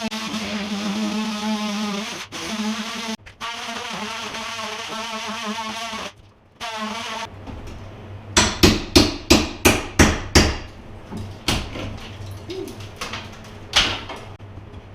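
Background music for roughly the first seven seconds, then hammer blows on a plaster wall: a quick run of about eight sharp strikes in two seconds, followed by a few single knocks.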